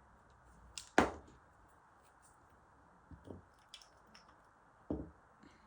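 A few small clicks and knocks of small objects being handled and set down on a hard surface, the sharpest about a second in and a duller one near five seconds.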